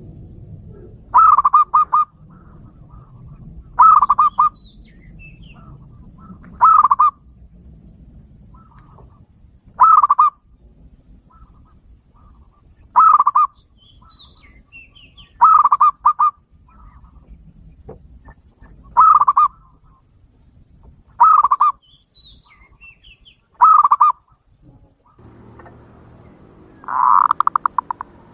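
Zebra dove (perkutut) lure call: a short burst of quick staccato coos, repeated about ten times at intervals of roughly two and a half to three seconds.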